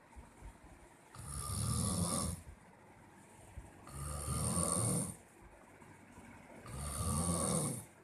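Heavy snoring: three long, loud snores about three seconds apart, each lasting about a second, with quieter stretches between them.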